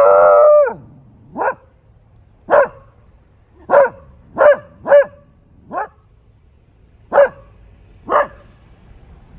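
Beagle barking in alarm at something unfamiliar: one long, drawn-out bark at the start, then eight short barks at about one a second.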